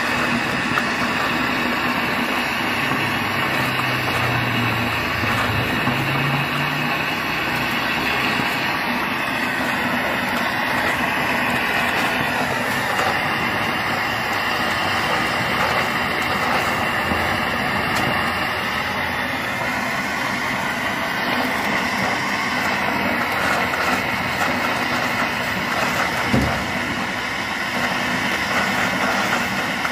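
Water and gas spraying out of an opened gas service pipe in a steady jet, as water that had got into the gas line is forced out. One brief knock about 26 seconds in.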